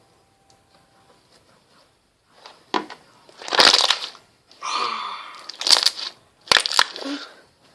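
Slime squeezed and worked by hand: quiet at first, then a run of about five loud squishing bursts with sharp clicks over the last few seconds.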